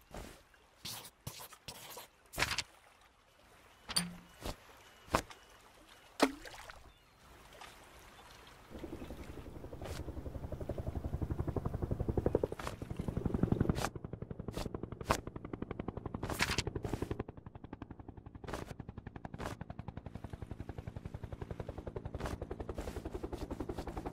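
Cartoon sound effects: scattered short clicks and taps, then from about nine seconds in the rapid, even chopping of a helicopter's rotor, which carries on with a few sharper clicks over it.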